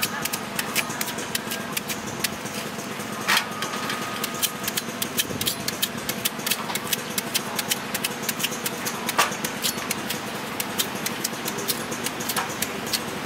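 Large kitchen knife slicing a peeled guava held in the hand, giving many short, crisp cutting clicks as wedges drop into a steel tray. A steady engine hum runs underneath.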